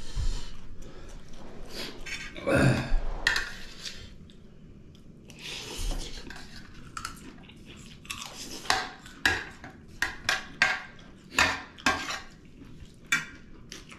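Metal spoon clinking and scraping on a stainless steel plate, mixed with chewing and lip-smacking; a run of sharp clicks comes in the second half.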